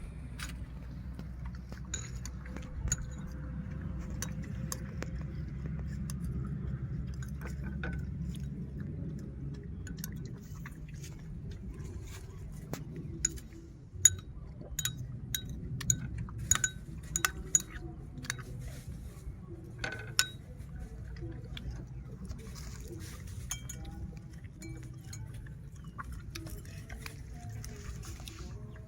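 Sharp, ringing clinks of an eating utensil against a dish, coming in a cluster through the middle, over a steady low rumble.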